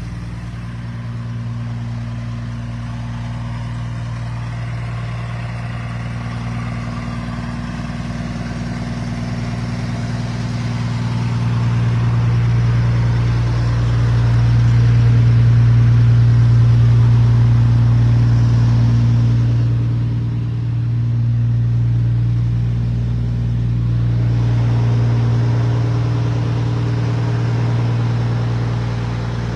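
Semi truck's diesel engine idling steadily at an unchanging pitch, growing louder around the middle and easing off again toward the end.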